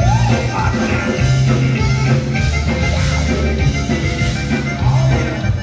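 Live conjunto band playing: button accordion, electric guitar, electric bass and drum kit, in a stretch without vocals.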